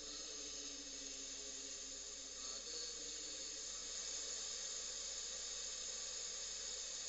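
Samcon FM radio giving a steady hiss of static, typical of a receiver between stations or on a weak signal.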